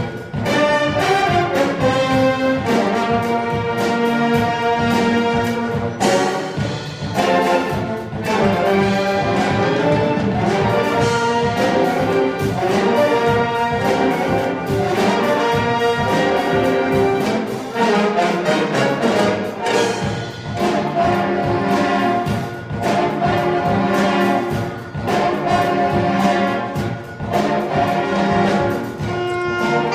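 A large saxophone ensemble with trumpets and trombones playing a jazz tune together: full horn chords over a steady beat.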